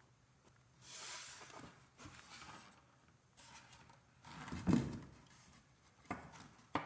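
Wooden door jamb boards being handled and fitted together: several scraping slides, a heavier thump a little before five seconds in, and two sharp knocks near the end.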